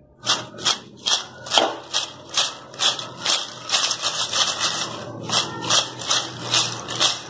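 Crisp fried potato chips tossed in a stainless steel bowl, rattling and crackling in a steady rhythm about twice a second: the dry, crunchy sound of well-crisped chips.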